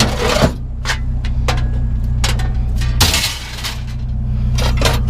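Scrap metal pieces clinking and clanking together as they are handled and sorted, in a string of short knocks with a louder clank about three seconds in. A steady low engine drone runs underneath.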